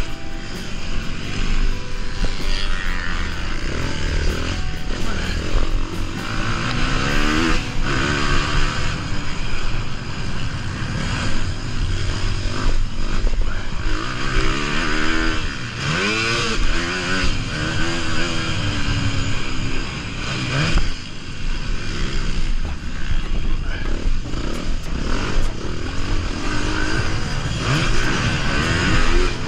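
Motocross bike engine revving up and down repeatedly as it accelerates, shifts and backs off along a dirt track, with a few sharp thumps.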